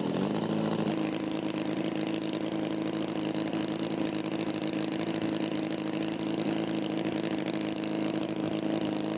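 Radio-controlled scale aerobatic model airplane engine running steadily at low throttle, holding one even pitch as the plane taxis out for takeoff.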